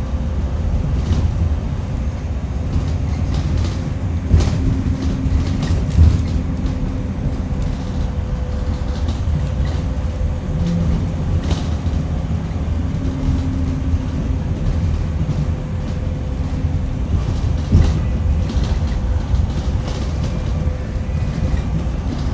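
Cabin noise aboard a moving 2018 Blue Bird Vision school bus: a steady low drone from the engine and road, with a faint steady hum. Sharp knocks and rattles from the body over bumps come now and then, the loudest about four and six seconds in.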